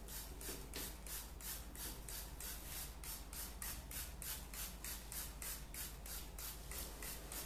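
Hand trigger spray bottle pumped over and over, about three short hisses a second, misting liquid onto a chocolate sponge cake to soak it.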